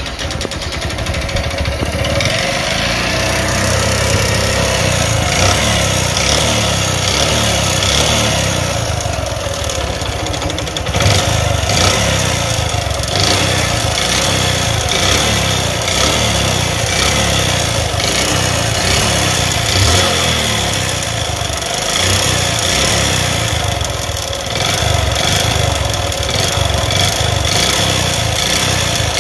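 Bajaj Platina motorcycle's single-cylinder four-stroke engine running at idle, with the throttle opened briefly a couple of times. Through it runs a tick-tick noise that comes from the piston, scuffed after the engine seized.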